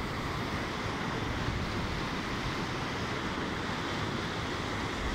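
Very loud, steady rush of fast canal water pouring over a concrete drop and churning into white water below.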